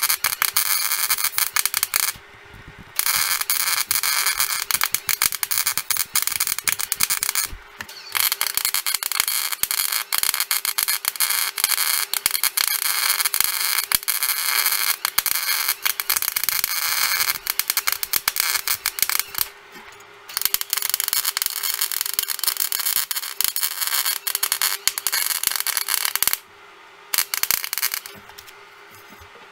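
MIG welder arc crackling and sizzling as a steel clutch-stop bracket is welded on all the way around. The arc stops four times for about a second between runs, the longest pause near the end.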